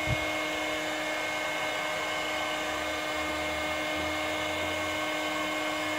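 Electric heat gun running steadily, its fan giving a constant hum with a fixed whine and rushing air, used to soften PVC pipe for bending. A single soft knock near the start.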